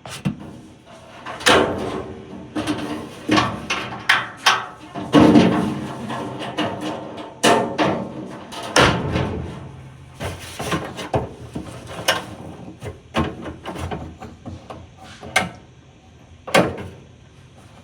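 Irregular knocks, clunks and clatters, about a dozen spread unevenly, some ringing briefly, as a dryer is handled.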